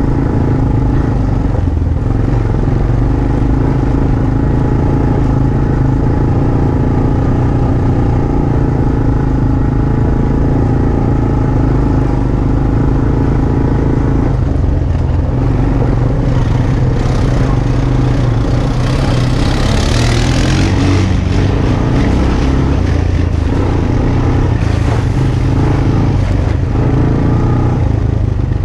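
ATV engine running steadily under way on a trail, its pitch shifting a little with the throttle. Past the halfway point a rush of hissing, rattling noise rises over the engine for a few seconds.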